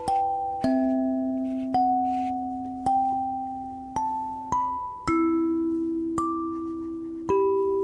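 Background music: a slow, gentle melody of struck mallet-percussion notes, each ringing and fading, over held lower tones.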